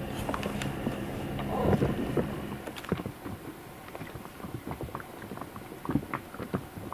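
A small boat's outboard motor runs at a steady low hum, which stops about two and a half seconds in. After that come irregular light knocks and taps, with wind and water around the boat.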